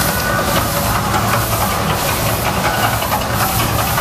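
Mirage volcano show erupting: a loud, steady rushing hiss of gas flames bursting up across the lagoon, with a low rumble underneath.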